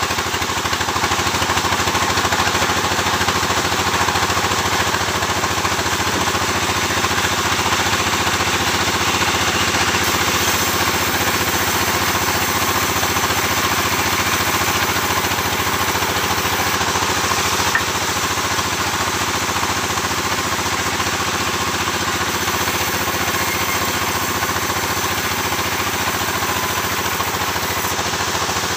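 Sawmill engine running steadily with a rapid, even beat. A small click comes about two-thirds of the way through, and it runs slightly quieter after it.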